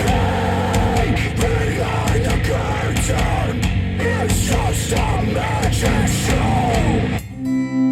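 Hard rock music with a sung vocal, played back over KEF Q350 bookshelf speakers driven by a NAD C 338 amplifier. About seven seconds in it cuts off suddenly and a strummed acoustic guitar begins.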